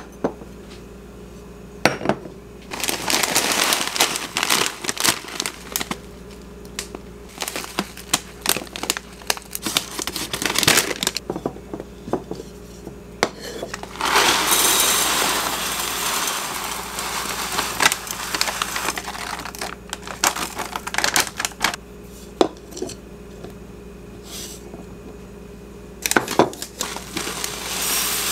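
Glass storage jars with bamboo lids clink and knock as they are handled on a tiled counter, and a plastic tea bag crinkles and rustles. Near the end, dry loose tea leaves pour into a glass jar with a rustling hiss.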